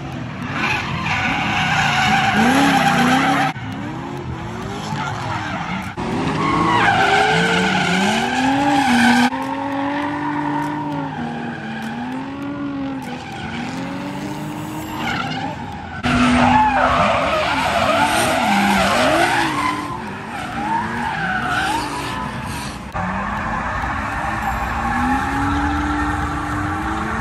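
Drift cars sliding through corners: engines revving hard, their pitch sweeping up and down again and again, with tyres squealing and screeching. The sound breaks off and jumps abruptly several times between short passes.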